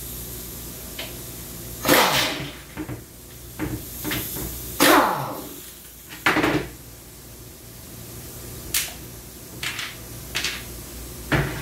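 Knocks and clicks of metal transmission parts and hand tools being handled as the valve body comes off a Lexus LS 460's 8-speed automatic transmission. The loudest knocks come about two and five seconds in, with lighter clicks near the end.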